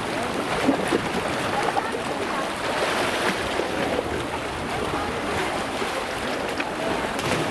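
Ocean surf washing over black lava rocks, a steady rush of water.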